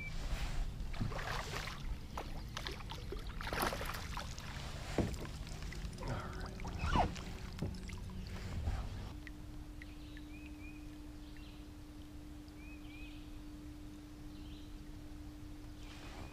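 A hooked fish is landed beside a kayak: water splashing and thrashing, with knocks against the hull as it is netted. About nine seconds in this gives way to a quieter stretch with a steady low hum and a few faint bird chirps.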